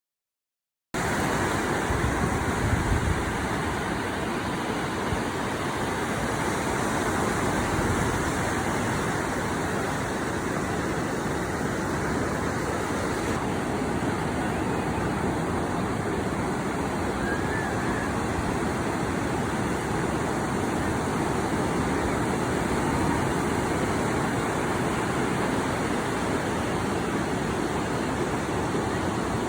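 Ocean surf washing steadily on a beach, with wind on the microphone. The sound cuts in abruptly about a second in.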